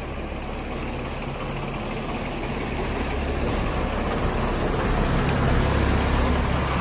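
A heavy road vehicle's engine running steadily with a low hum, gradually getting louder.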